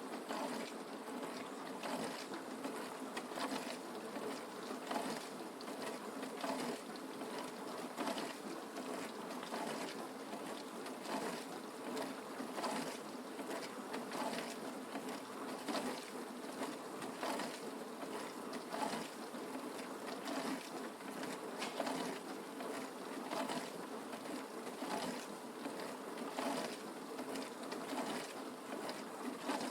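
Dishwasher running its wash cycle: a steady hum and water spray inside the tub, with frequent irregular surges of splashing.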